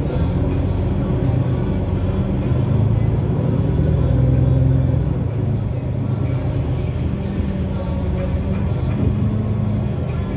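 Passenger-cabin sound of an Otokar Kent C-12 diesel city bus under way: the engine's steady low hum with road and rattle noise, swelling a little about four seconds in and easing after.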